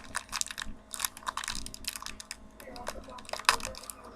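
Rustling and crinkling of handled toy packaging: a quick run of sharp crackles, with one louder snap about three and a half seconds in.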